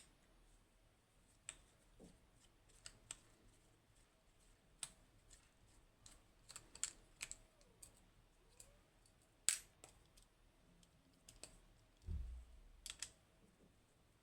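Scattered light clicks and ticks of small metal lock parts being handled as a pin tumbler lock is taken apart, with one dull low thump about twelve seconds in.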